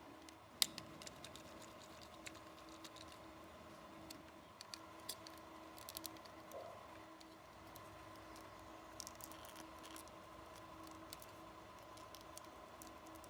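Faint, scattered small clicks and taps from hand work on a model car's small parts, over a steady low hum.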